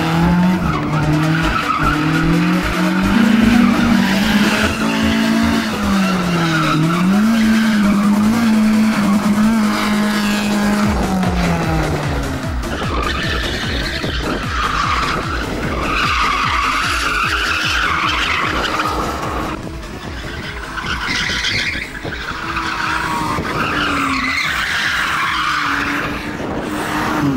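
A drifting car's engine revving hard, its pitch climbing and dropping again and again, with tyres screeching as the car slides. In the second half the tyre screech is the loudest sound.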